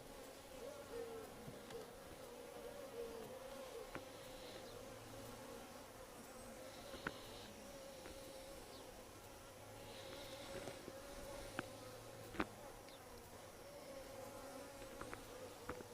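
Honeybees buzzing steadily around an open top bar hive, a low hum with individual bees wavering in pitch as they fly past. A few light clicks sound now and then.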